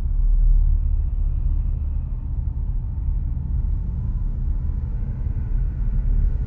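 Low, steady rumbling drone from a suspense soundtrack.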